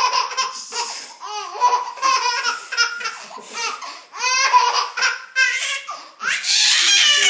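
Baby laughing in a string of short, high-pitched laughs, with a longer, louder laugh near the end.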